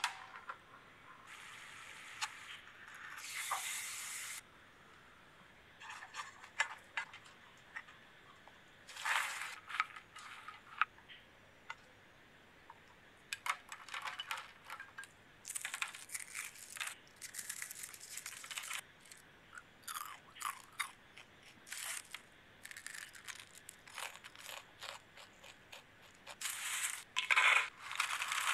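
Caramel-coated popcorn crackling and rattling in scattered bursts as it is handled and tipped out. The loudest burst, near the end, is popcorn pouring into a plastic jar.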